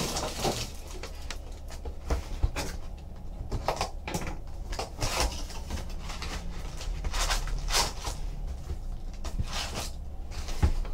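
A cardboard trading-card hobby box being opened and its foil-wrapped card packs lifted out and stacked, giving irregular rustles, crinkles and light taps.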